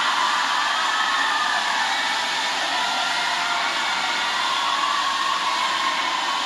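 Arena crowd applauding steadily, with cheering voices faintly over the clapping.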